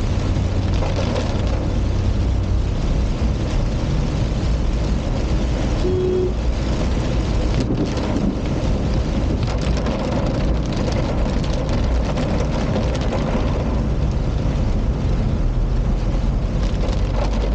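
A car driving in heavy rain: a steady low engine and road drone mixed with the hiss of rain on the car.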